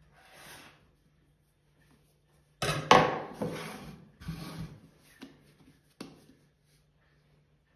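Hands handling sourdough dough on a wooden table with a metal bench scraper: a soft scrape, then a sharp knock near three seconds in, the loudest sound, followed by rubbing and brushing as the dough is turned and set into a flour-dusted cane banneton, with a couple of light taps near the end.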